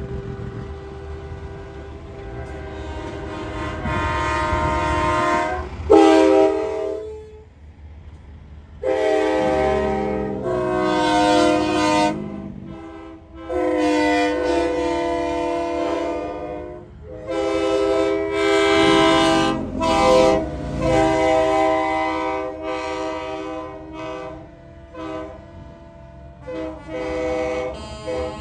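Semi trucks' air horns, train-style chords, sounding in a string of long blasts several seconds each with short breaks, over the low rumble of diesel engines passing.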